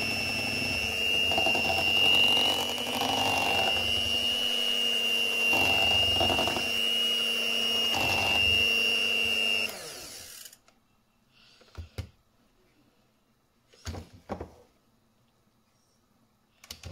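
Cookworks electric hand mixer running steadily with a high whine, its beaters churning thick rice-flour batter in a bowl. It switches off and winds down about ten seconds in, followed by a few faint knocks.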